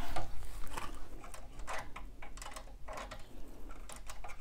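Scattered light clicks and taps with a soft rustle, coming at irregular moments: a hooped towel being handled and settled on an embroidery machine's hoop frame.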